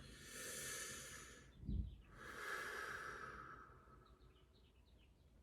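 A person breathing out heavily twice, long sigh-like breaths close to the microphone, with a soft thump between them.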